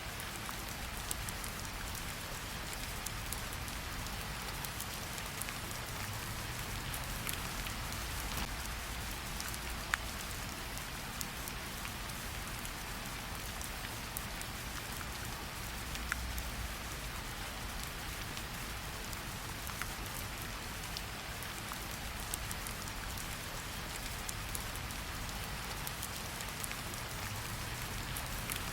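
Steady rain falling, an even hiss with scattered individual drops ticking sharply, a couple of them louder than the rest, over a soft low rumble.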